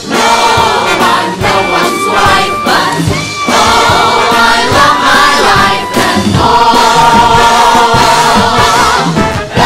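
Musical theatre cast singing together in long held notes over a live pit band with a steady beat. The chords change every second or two, and near the end a short break gives way to a louder held chord.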